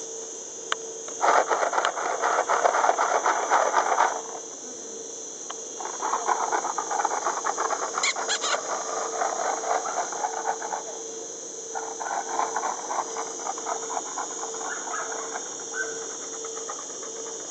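A steady high-pitched insect drone, broken by bouts of loud crackling rustle a few seconds long. The loudest bout comes about a second in.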